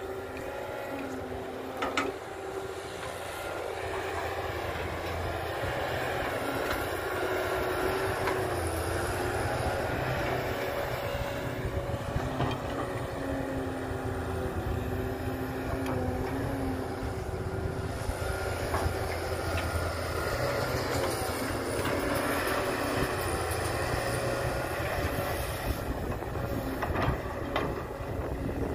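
Cat 320BL excavator's diesel engine and hydraulics working: the engine note rises and falls as it takes load, with a few sharp clunks.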